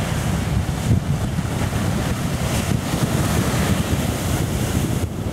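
Strong wind buffeting the microphone in a steady low rumble, over the hiss of surf breaking and washing up the beach.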